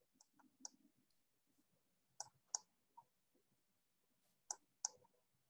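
Faint computer mouse clicks in three quick pairs, about two seconds apart, over near silence.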